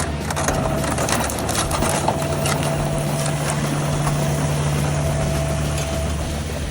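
Excavator's diesel engine running steadily with a thin steady whine over it, and scattered sharp cracks and clicks during the first couple of seconds.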